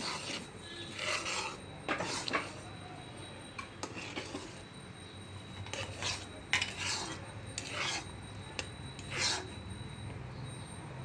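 Flat metal spatula scraping against a black pan while stirring a thick paste, in irregular short strokes that stop shortly before the end.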